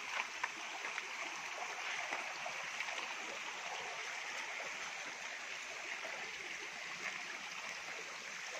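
Shallow mountain creek running over rocks: a steady rush of water, with a couple of light knocks near the start.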